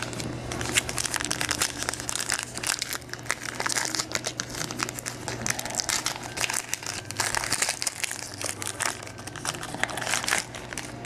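Foil trading-card packs being ripped open and crumpled by hand: continuous, irregular crinkling and crackling of the wrappers.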